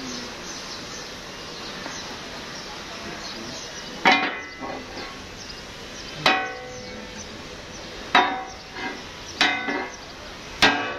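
Hand hammer striking the bent metal blade of a ship's propeller to straighten it. About four seconds in the blows begin: six sharp, ringing metal strikes a second or two apart, one of them weaker.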